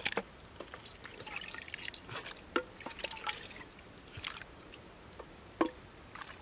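Soup being spooned from a clay pot into a coconut-shell bowl: broth dripping and splashing back into the pot, with a few sharp, short clicks.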